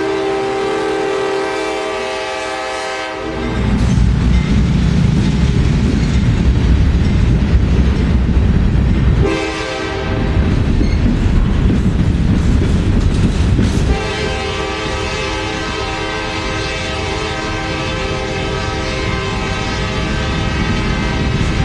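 A freight train passes close by, its covered hopper cars rumbling and clacking over the rails. A diesel locomotive horn sounds over them: a blast at the start, a brief one about nine seconds in, and a long one from about fourteen seconds on.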